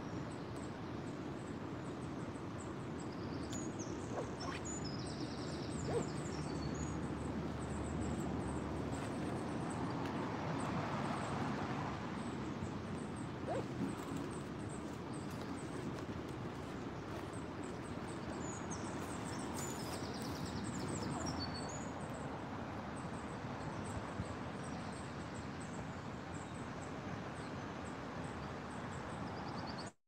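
Shallow river flowing steadily over a stony bed, with birds calling high and thin twice, a few seconds in and again about two-thirds through.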